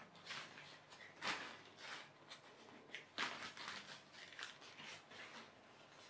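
Faint rustling and handling noises from a stunt kite's sail fabric and spar being worked by hand: a loose string of short scuffs, crinkles and light taps.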